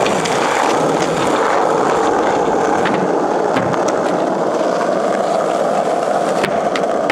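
Skateboard wheels rolling on rough asphalt: a steady gritty rolling rumble, with a few faint clicks from the board.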